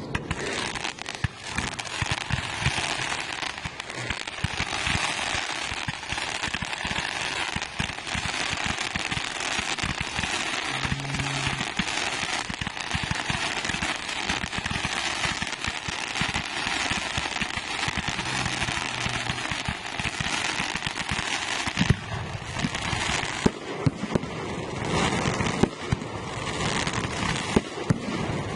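Fireworks display: a dense, continuous crackling of many small bursts, with louder single bangs standing out in the last few seconds.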